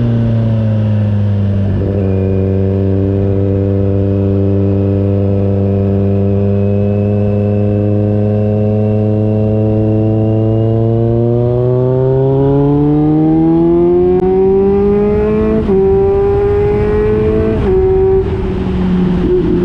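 Kawasaki Z900 inline-four with an SC Project GP1 aftermarket exhaust, under way. The note holds steady at low revs, then climbs, with two sharp drops in pitch near the end, typical of upshifts under acceleration.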